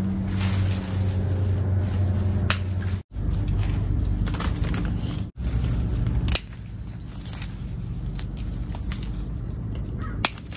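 Hand pruning shears snipping Kishu mandarin fruit stems, a few sharp snips several seconds apart, with the rustle of the tree's leaves being handled.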